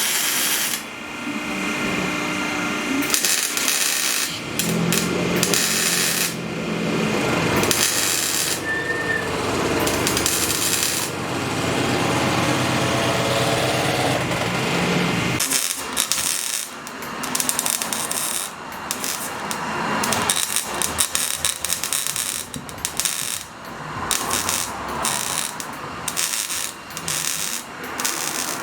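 Power tools at work on an exhaust in a shop: a steady machine drone for about the first half, then rapid, irregular clattering and crackling.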